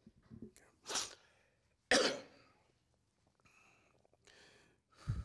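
A man's two sharp, cough-like exhalations into a microphone, about a second apart, the second louder, followed by fainter breaths and a short low thump near the end.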